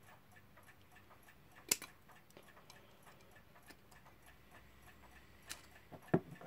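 Balance-wheel escapement of a wound Emes clock movement ticking rapidly and faintly as it runs, with a few louder sharp clicks from the metal movement being handled.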